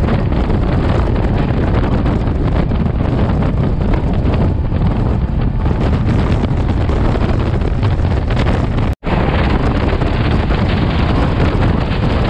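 Wind rushing over the microphone and the steady running noise of a Shatabdi Express passenger train at high speed, heard from its open doorway. The sound cuts out for a split second about nine seconds in.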